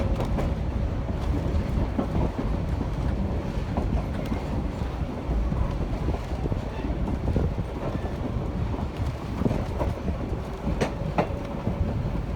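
Passenger railroad car rolling along the track: a steady low rumble, with occasional sharp clicks of the wheels over rail joints, two close together near the end.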